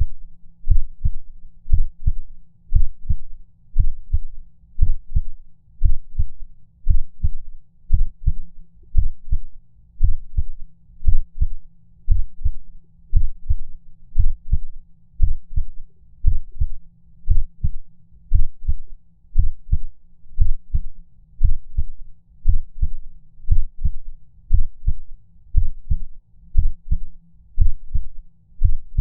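Heartbeat sound effect: low, muffled lub-dub thumps, mostly in pairs, about once a second, meant as a heart skipping beats.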